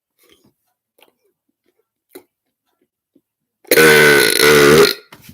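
A man's loud burp, a little over a second long, near the end after a few near-silent seconds.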